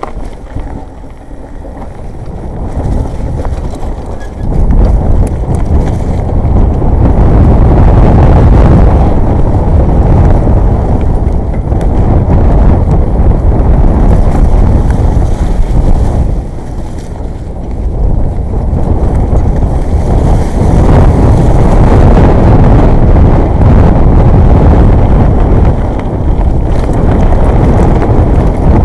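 Wind buffeting an action camera's microphone, mixed with the rumble and rattle of a Jamis Dragon 29 mountain bike riding fast over a wet, muddy trail on slightly deflated tyres. It builds up over the first few seconds, then runs loud, with a short lull about two-thirds of the way through.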